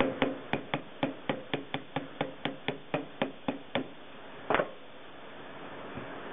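Soft-faced mallet tapping on the metal frame of a blower motor, about fifteen quick light knocks at roughly four a second, to work the bearing during a bearing change; tapping on the frame, not the bearing. About four and a half seconds in comes one louder, longer knock.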